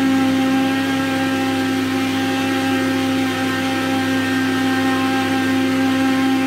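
Electric countertop jug blender running steadily, blending a liquid mixture of egg, sugar and oil, its motor giving an even, unchanging whine.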